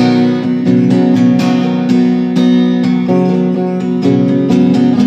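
Acoustic guitar strumming chords, a steady rhythm of strokes about twice a second, with no singing.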